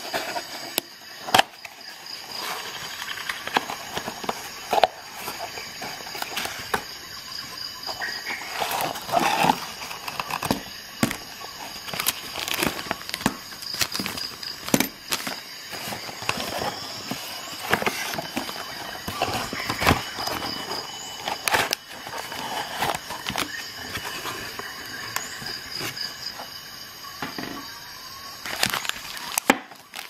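Cardboard box and plastic packaging being handled and opened by hand: rustling and scraping, with frequent small knocks and clicks.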